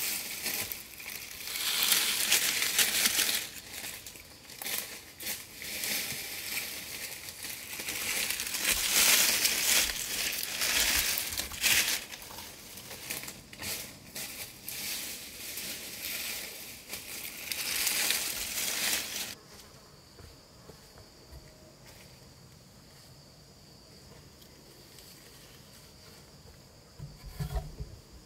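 Dry leaves crunching and rustling in irregular bursts as they are worked over the shelter roof, heard from inside the shelter. About two-thirds of the way through this stops abruptly, leaving a steady high insect drone, with a few soft thumps near the end.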